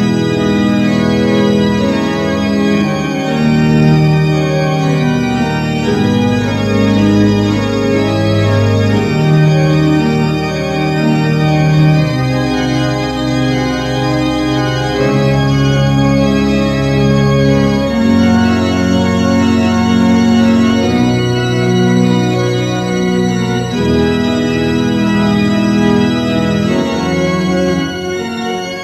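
Organ music: slow, sustained chords, each held for two to three seconds before moving to the next.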